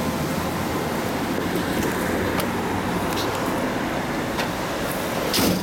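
Steady road-traffic and engine noise, with a few short knocks scattered through it and a louder knock near the end.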